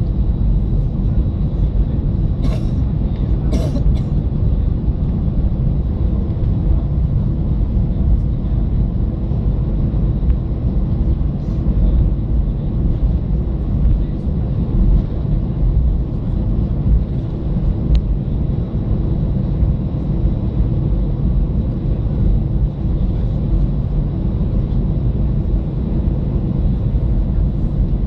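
Cabin rumble of an Airbus A320-211 taxiing, its CFM56-5A1 turbofans at low taxi power, heard from inside the cabin over the wing. A couple of brief clicks about three seconds in.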